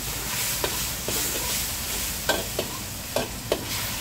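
Metal ladle scraping and clanking against a steel wok while egg and noodles are stir-fried over a gas flame, with a steady sizzle underneath. The clanks come irregularly, about twice a second.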